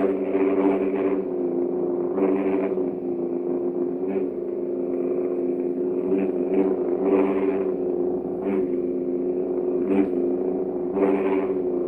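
Custom Arduino-built lightsaber hum: a steady drone of stacked tones made from sine and square waves through a class D amplifier. It swells brighter and louder in short bursts over and over as the gyroscope in the hilt senses the saber being swung.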